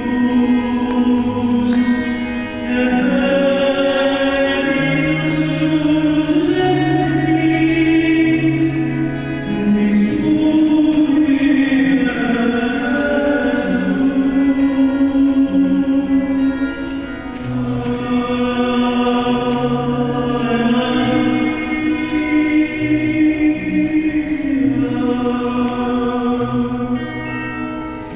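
Choral music: a choir singing slowly in long held notes over sustained low notes.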